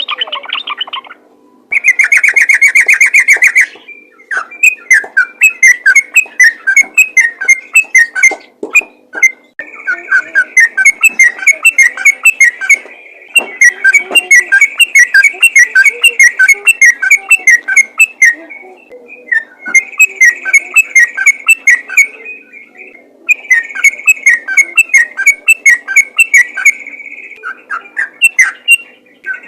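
Yellow-vented bulbul singing rapid, continuous strings of short, sharp whistled notes, in long runs broken by brief pauses.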